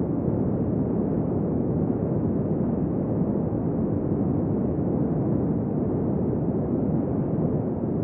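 Windy desert ambience: a steady, low, dull wind noise that holds an even level throughout, with no gusts or sudden events.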